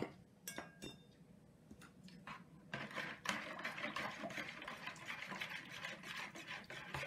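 A metal spoon stirring briskly in a plastic bowl of warm water, scraping and swishing continuously from about three seconds in, dissolving sugar and yeast for dough. Before that, a couple of light clinks from the lid of a small sugar pot.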